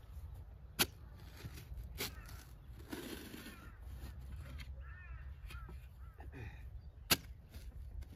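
Harsh, crow-like bird calls repeating, with three sharp knocks, the loudest near the end, and a brief scrape about three seconds in.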